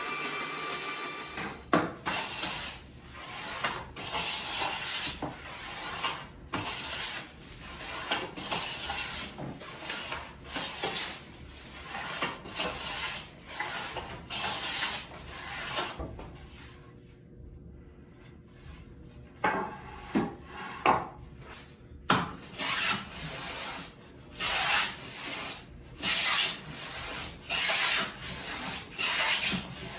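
Hand plane taking repeated strokes along a pine board, a series of separate shaving strokes about one to two a second, with a short pause partway through.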